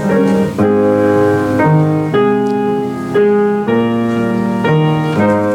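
Piano music: sustained chords played at a moderate pace, changing about every half second.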